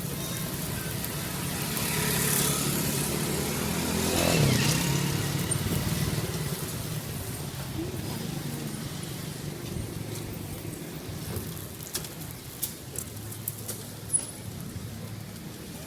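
Motor vehicle engines running in street traffic, one engine's pitch dipping and rising again about four seconds in. A few short sharp clicks near the end.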